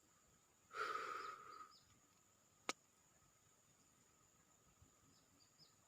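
Near silence with faint high bird chirps and a steady faint high-pitched hum; a brief rustling noise about a second in and a single sharp click near the middle.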